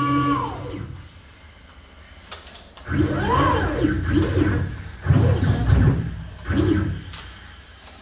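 CNC mill's Z-axis stepper motor whining as the spindle head jogs down, then sliding down in pitch and stopping within the first second. After a pause, about four short jog moves follow, each whine rising and then falling in pitch, as the spindle nose is inched down onto the tool setter.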